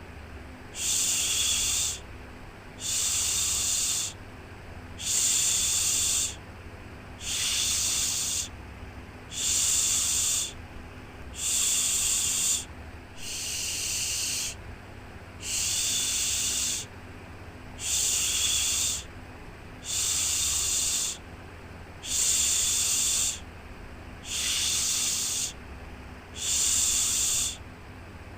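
A soothing 'shhh' shushing sound, repeated about every two seconds, each shush lasting about a second, over a faint steady low rumble.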